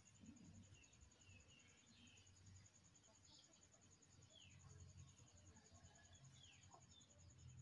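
Near silence: faint outdoor background with a few short, faint bird chirps and a steady, faint high pulsing tone.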